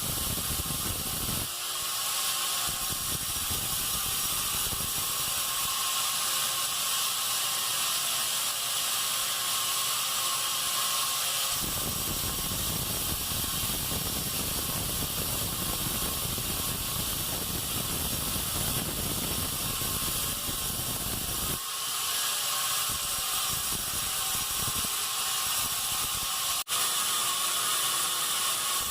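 Band sawmill running while sawing a pine log: a steady hiss, with a heavier low rumble that comes and goes in long stretches.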